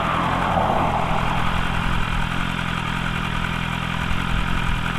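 BMW S1000RR's inline-four engine idling steadily while the bike stands in neutral.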